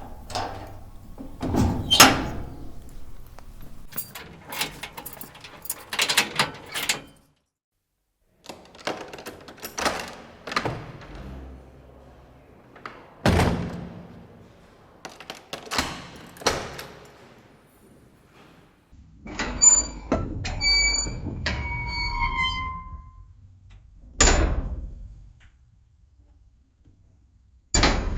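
Heavy metal prison cell doors slamming shut with bangs and clanks, about a dozen over the stretch, each one echoing down a hard corridor. A few ringing metallic clinks of the lock and keys come about two-thirds of the way through.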